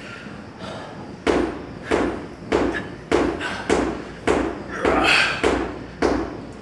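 A steady run of sharp thuds, a bit under two a second, starting about a second in.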